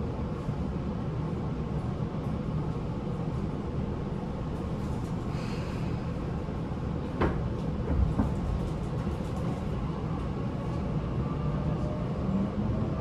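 Inside a Tobu 9050-series car: steady air-conditioning and car rumble, with two door-like thumps about 7 and 8 seconds in. Near the end a faint whine slowly rises in pitch, typical of the Toyo GTO-VVVF inverter as the train starts to move off.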